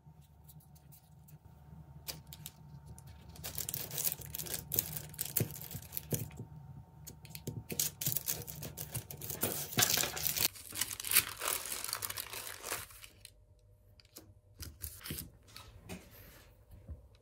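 Hands rubbing together and pressing air-dry clay down on baking paper, the paper crinkling and rustling, loudest through the middle and thinning to a few light rubs and taps near the end. A low hum sits underneath and stops about ten seconds in.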